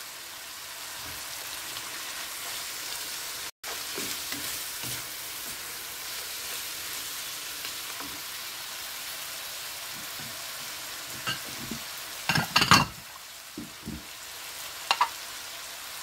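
Shrimp, squid rings, mussels and peppers sizzling steadily in a frying pan while a wooden spatula stirs them. A few sharp knocks and scrapes come near the end, and the sound cuts out for an instant about three and a half seconds in.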